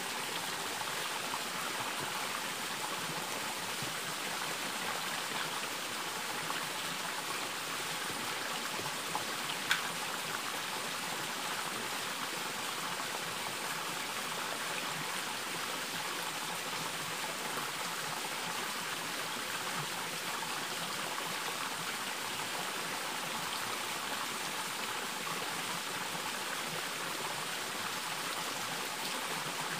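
Steady rushing of running water, like a nearby stream, with a single short tap about ten seconds in.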